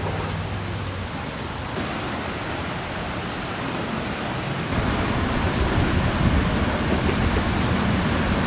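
Flooded river water rushing and churning past trees and banks, a steady noise; it grows louder with a deeper rumble from about five seconds in.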